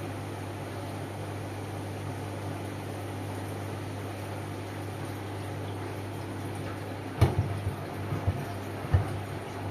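Indesit washing machines running a wash cycle, giving a steady motor hum. About seven seconds in come several dull thuds in quick succession.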